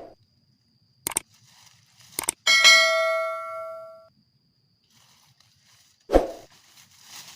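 A single metallic, bell-like ding that rings and fades over about a second and a half, preceded by two short clicks. A short dull knock follows near the end.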